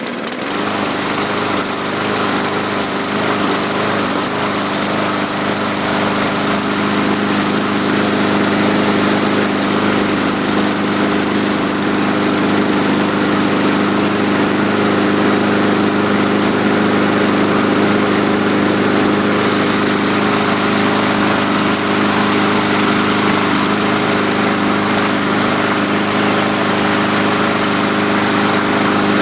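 Yard Machines push mower's 500E single-cylinder engine running steadily at speed after being pull-started.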